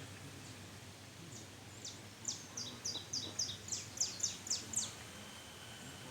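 A bird singing a run of about ten short, high notes, each sliding downward, coming quickly one after another for about three seconds.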